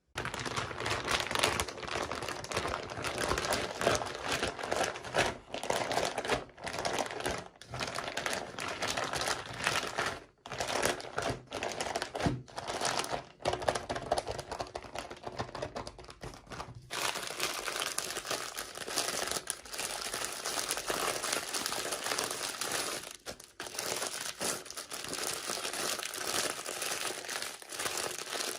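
Toy packaging crinkling and rustling as it is handled and opened for unboxing, with a few short pauses.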